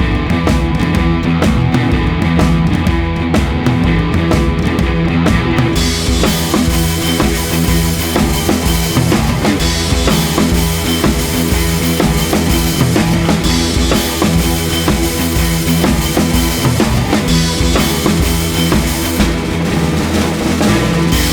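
Rock background music with a steady drum-kit beat and bass, the fuller band coming in about six seconds in.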